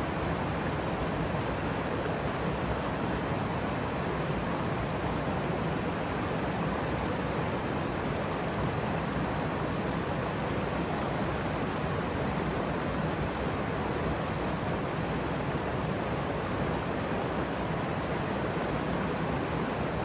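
Waterfall: water falling and splashing onto rocks, a steady, unchanging rush.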